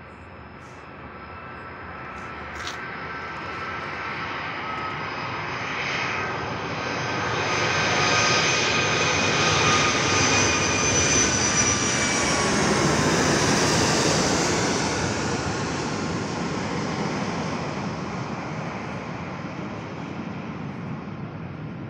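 Boeing 757-28S(PCF) freighter's twin jet engines on landing approach, flying over. The jet noise builds for about eight seconds to a loud peak, with a whining tone that drops in pitch as the aircraft passes, then slowly fades.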